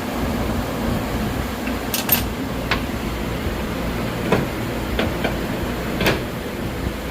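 Steady machine hum with about seven sharp clicks or knocks scattered through it, two close together about two seconds in and one more near the end.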